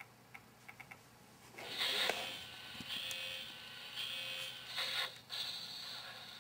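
A few faint clicks in the first second as the Digitrax PR3 reads the sound decoder. Then, about a second and a half in, the model locomotive's Digitrax sound decoder starts playing an SD70MAC diesel startup sound through its small Soundtraxx Mega Bass speaker, in uneven bursts.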